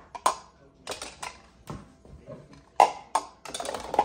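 Glass pot lids clinking and tapping against a stainless-steel wire pot-lid rack as they are slotted in. A series of sharp clinks, the loudest about three seconds in, then a quick rattle near the end.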